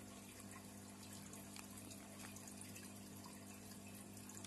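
Near silence: room tone with a faint steady low hum and a few soft ticks.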